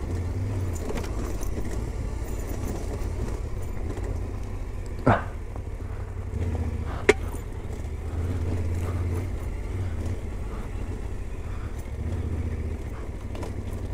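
Yamaha Ténéré 700's parallel-twin engine running at low revs as the motorcycle rolls down a rocky gravel track, its low note swelling and easing off several times. Two sharp knocks about two seconds apart come midway through.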